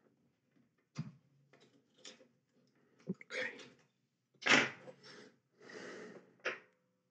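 Small handling noises from tweezers and fingers working on a Flipper Zero's opened plastic case and ribbon-cable connectors: three sharp little clicks, with short rustling scrapes between them, the loudest about four and a half seconds in.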